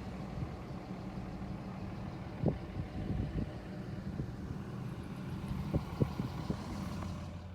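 Vehicle engine idling steadily, with a few brief knocks over the hum.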